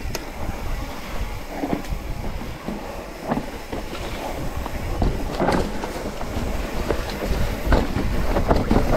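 Wind rumbling over the microphone with the scattered rattle and clatter of a mountain bike riding a rough trail, growing louder over the second half.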